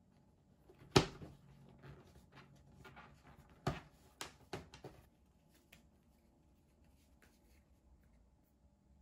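Plastic embroidery hoop being pressed together over fabric on a wooden table: one sharp click about a second in, a second knock a few seconds later, and a cluster of lighter taps and cloth handling after it.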